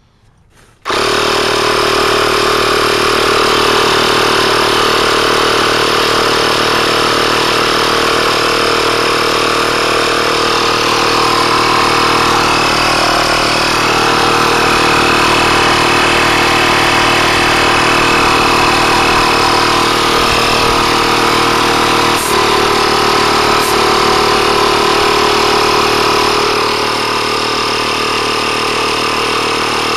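Pump motor switches on about a second in and runs steadily and loudly, pushing foam sealant into a flat tire, with two small clicks a little past two thirds of the way through.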